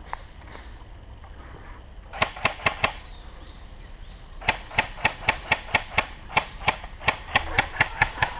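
Airsoft gun firing: a quick string of five sharp shots, then after a short pause a longer run of about seventeen single shots, roughly four to five a second.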